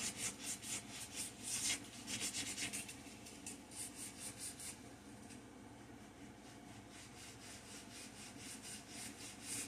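Sandpaper rubbed back and forth by hand over a table top, in quick even strokes of about five a second. The strokes die down about halfway through and pick up again faintly near the end.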